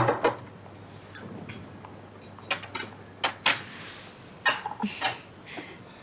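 Cutlery and tableware clinking and knocking a few times, the sharpest knock right at the start, with a short rushing rustle about three and a half seconds in.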